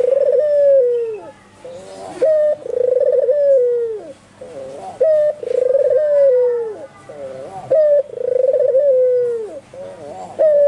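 White albino puter (Barbary dove) cooing over and over. Each call is a short note followed by a long, rolling coo that falls in pitch, and the calls come about every two and a half seconds, four times with a fifth beginning near the end.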